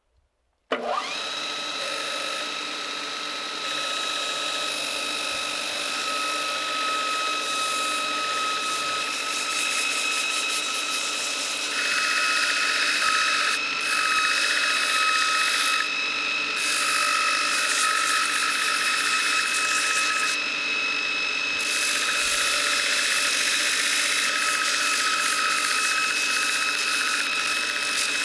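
Belt grinder starting up under a second in, spinning up and then running with a steady whine. From about twelve seconds in, a birch knife handle is pressed against the sanding belt at the contact wheel in several passes, each adding a rasping hiss of wood being sanded.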